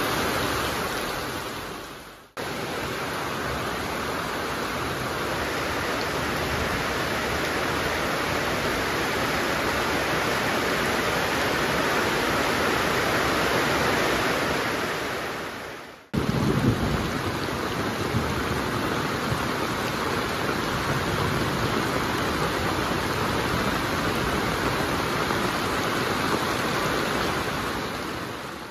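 Heavy monsoon rain pouring steadily, an even hiss. It fades out and back in about two seconds in and again around sixteen seconds.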